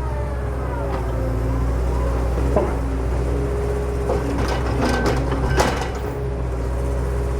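Excavator working: its diesel engine runs steadily under a hydraulic whine that shifts in pitch, with several sharp clanks and knocks about two and a half, four, five and five and a half seconds in.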